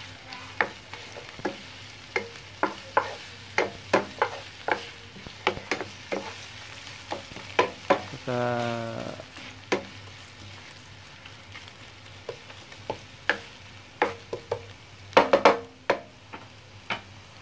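Sliced red onion and garlic sizzling in hot oil in a nonstick frying pan, with a wooden spatula knocking and scraping against the pan as it stirs, about once or twice a second. The stirring eases off past the middle and comes back with a quick cluster of knocks near the end.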